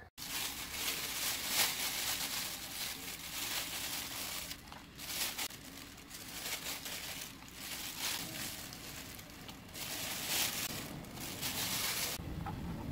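Thawed bacon slices handled on a wooden cutting board, peeled apart and laid flat: a continuous crackly rustle of sticky meat and fingers that swells and fades, with a few louder moments.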